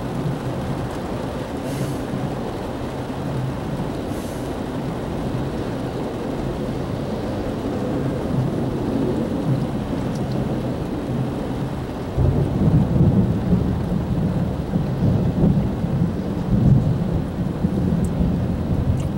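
Rain falling while a freight train of autorack cars rolls by with a steady low rumble. About twelve seconds in, a louder, rougher low rumble sets in and continues, rising and falling.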